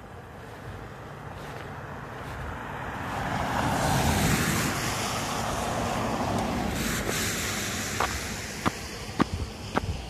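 A Ram pickup truck passing on a wet, slushy road: its tyre hiss swells over a few seconds and fades away. Near the end come a few sharp clicks.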